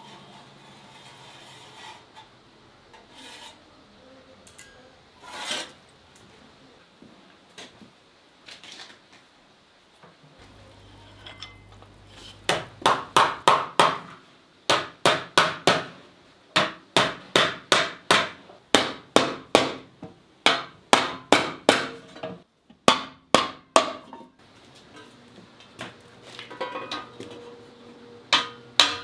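Hand hammer beating a copper disc into shape, to raise a teapot from a single sheet: sharp ringing blows about three a second in runs with short pauses, starting about twelve seconds in. Before the blows there are only faint scratches and taps, as dividers scribe a circle on the sheet.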